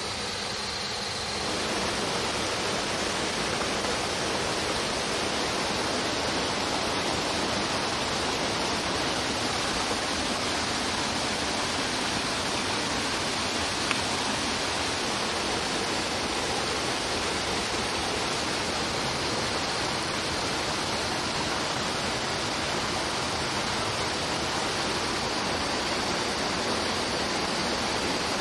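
Steady rush of a small waterfall and rocky stream, growing a little louder about a second and a half in, with one brief click about halfway through.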